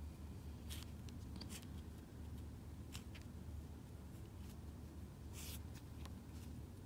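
Crochet hook and yarn being worked by hand: faint rustles and a handful of short scratchy strokes, the longest about five seconds in, over a steady low hum.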